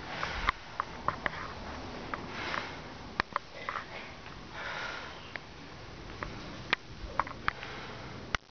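A person breathing audibly through the nose while moving through a kung fu form, several hissing breaths, among scattered sharp clicks and taps of bare feet on a wooden floor.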